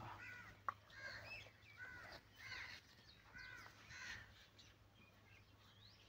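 Crows cawing faintly in a string of short calls that die away after about four seconds, with a single sharp click about a second in.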